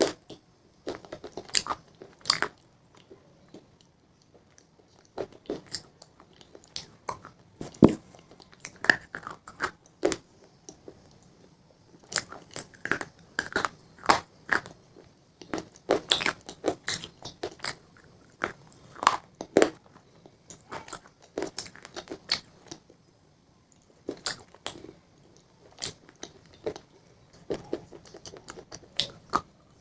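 A person biting and chewing crunchy pizza: irregular clusters of crisp crunches, with short quiet gaps between bites.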